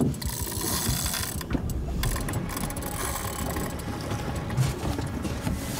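Daiwa Saltiga 14000 spinning reel working under heavy load from a hooked yellowfin tuna, its gears and drag making a steady mechanical sound.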